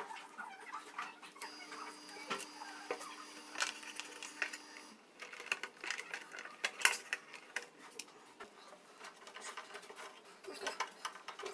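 Irregular small clicks, taps and light scraping, like hands handling small hard parts, with a faint steady hum during the first five seconds.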